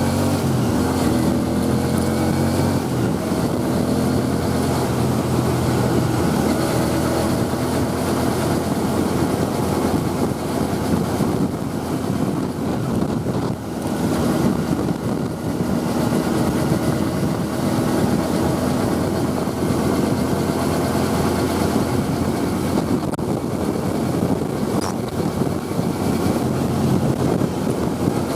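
Motorcycle engine running under way, rising in pitch over the first couple of seconds as it speeds up, then holding steady, with wind rushing over the microphone throughout.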